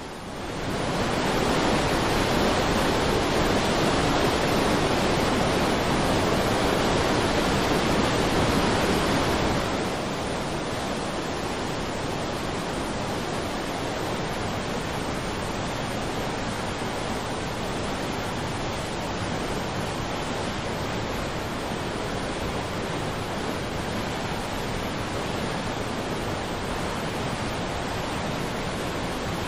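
Muddy floodwater crashing and rushing as a steady wash of noise. It is louder for the first ten seconds, the Yellow River's Hukou Waterfall in flood, then drops to a slightly quieter, even rush of a flooded river in full spate.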